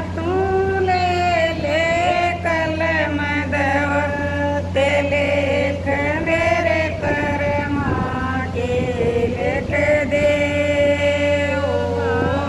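A woman singing a devotional bhajan solo, long held notes sliding up and down in pitch, over a steady low hum.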